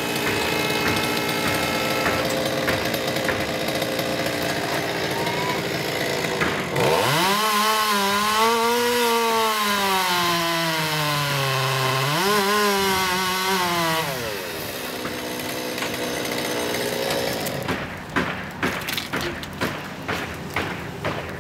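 Chainsaw running, then held at high revs for about seven seconds, its pitch sagging and recovering as it works through a cut before it drops back. Near the end comes a quick run of sharp knocks.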